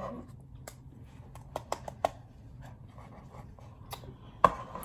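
Scattered light clicks and taps of dishes and cutlery at a meal table, with one sharp knock near the end, over a low steady hum.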